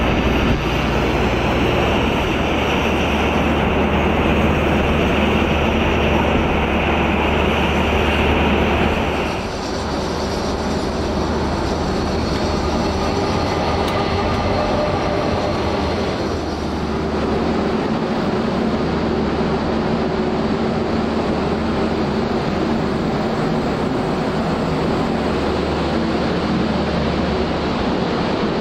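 A train running along the track, a steady rumble with a low engine drone. A high hiss over it cuts off about nine seconds in.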